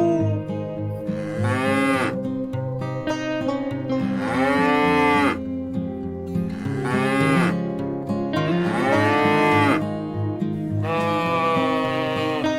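Cattle mooing: five drawn-out calls of about a second each, each rising and then falling in pitch, over background music of plucked strings.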